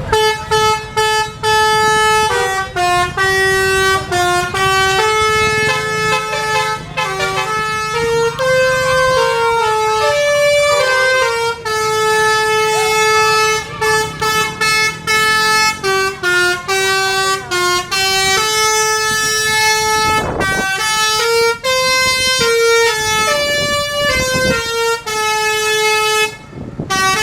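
Bus's Basuri V4 musical air horn (telolet horn) playing a tune. Its held notes step up and down in pitch, with short breaks between phrases.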